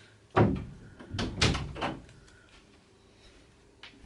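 Household knocks and thumps: one sharp knock about half a second in, then a short run of clattering knocks about a second later.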